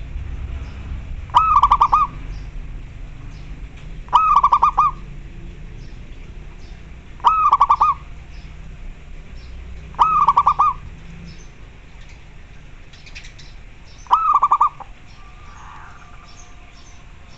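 Zebra dove (local perkutut) calling: five short rolling coos about three seconds apart, with faint chirps of small birds in the background.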